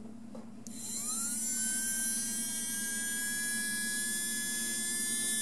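Electric motor and gear drive of a Mantua HO 0-4-0 locomotive chassis starting up under power about a second in, its whine rising quickly in pitch and then running steadily: the freshly cleaned and re-oiled mechanism, dead on arrival before, now running smoothly.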